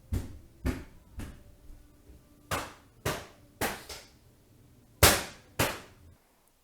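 A run of loud, sharp bangs, each with a short ring, about half a second apart in three bursts, like something being slammed or struck hard again and again. The last bang comes about six seconds in.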